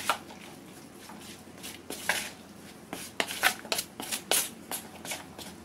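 Wooden spoon stirring shredded jackfruit and seasoning in a plastic mixing bowl: irregular scrapes, rustles and light knocks, busiest in the second half.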